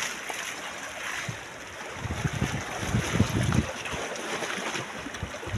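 Wind buffeting the microphone over the sea washing against shoreline rocks. A stronger spell of low rumbling wind begins about two seconds in and lasts over a second.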